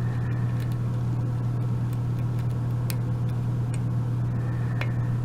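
A steady low hum throughout, with a few faint, light clicks of a lock pick working the pins of a Sargent mortise cylinder, some of them spool and pin-in-pin pins.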